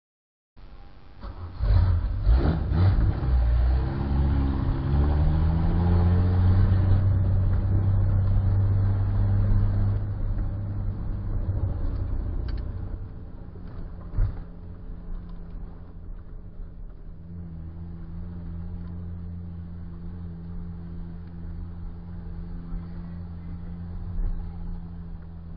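Chevrolet Opala engine starting, revving up, then settling into a steady idle.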